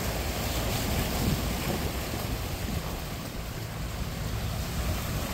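Small sea waves washing over a rocky shoreline as a steady wash, with wind rumbling on the microphone.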